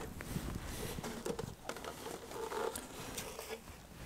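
Faint light knocks and scraping of a shallow wooden hive box being lifted off a hive stack and handled.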